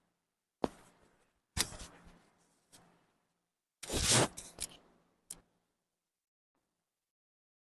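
Sharp cracks from a chiropractic spinal adjustment as joints are manipulated. There are single cracks about half a second, a second and a half and nearly three seconds in, then a louder, longer crunch around four seconds, followed by a few quick clicks.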